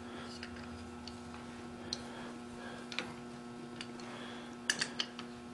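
Light metallic ticks and clicks of an adjustable wrench being fitted to a nut on a steel grinding fixture: a few scattered taps, then a short cluster near the end, over a steady low hum.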